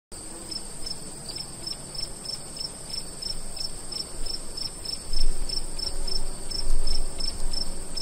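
Crickets chirping in a fast, even rhythm, about three chirps a second, over a steady high insect trill. A couple of low rumbles come through around five and seven seconds in.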